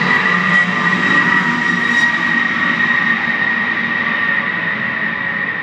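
Aircraft passing overhead: a loud, steady engine rush with a high whine that drifts slightly lower in pitch and fades a little toward the end.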